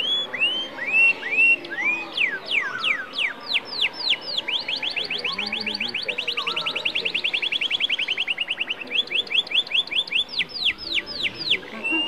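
Domestic canary singing: a string of quick downward-sweeping whistled notes that run together into a fast, even trill in the middle, then break back into separate sweeps.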